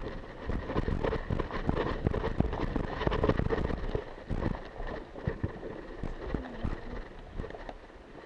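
Footsteps of a player running over the ground, with kit knocking and rustling; quick, irregular steps for the first four seconds or so, then slower and quieter.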